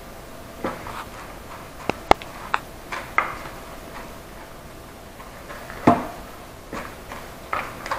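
Hands pressing pieces of chicken into crushed pork rinds in a plastic bowl: scattered crunching and rustling, with a few sharp clicks about two seconds in and a louder knock near six seconds.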